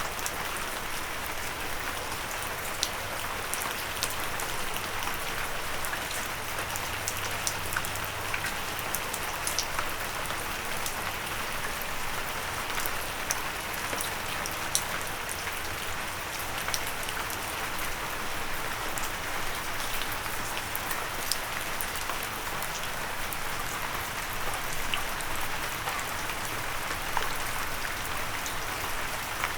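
Steady rain falling, a continuous hiss with many scattered sharp ticks of drops hitting a windowsill.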